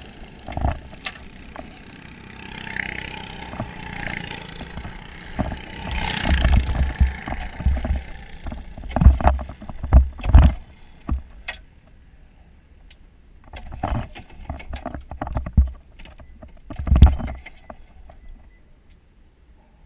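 Stalled kart engine being pull-started again and again without catching: several short, loud cranking bursts, irregularly spaced, with no steady running note in between.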